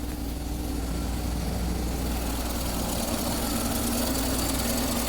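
Volkswagen Gol Trend four-cylinder petrol engine idling steadily just after starting, its idle note settling slightly lower about one and a half seconds in. It now starts at once with the timing belt correctly set, where it would not before while out of time.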